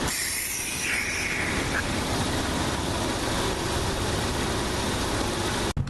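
Car engine running at idle with the A/C and blower on high, a steady broad noise. There is a brief hiss about a second in.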